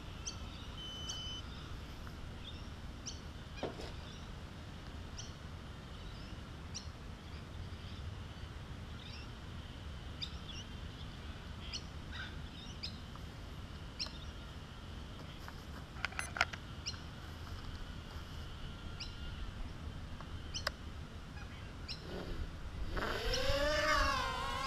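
Birds chirping now and then over a steady low rumble; near the end a micro quadcopter's motors spin up into a loud whine whose pitch swoops down and up as it lifts off and hovers close.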